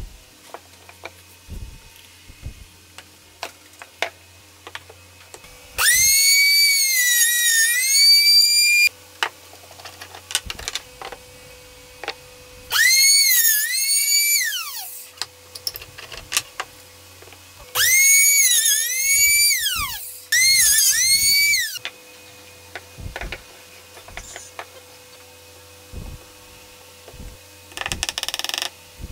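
Compact trim router running in four short bursts, a high whine that dips as the bit cuts into the wood and falls away as the motor winds down after switching off. Between runs come scattered knocks of the workpiece being handled, and near the end a few sharp taps of a mallet driving wooden keys into the box corners.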